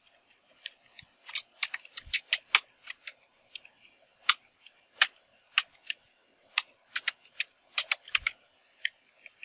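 Computer keyboard typing: a string of sharp keystroke clicks at an uneven pace as a short terminal command is typed, with a few Enter key presses among them.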